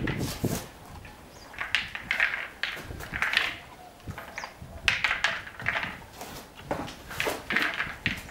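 A horse nudging and rolling a plastic treat ball over rubber stable matting: a run of short, irregular scuffs and rattles, about a dozen, spaced unevenly.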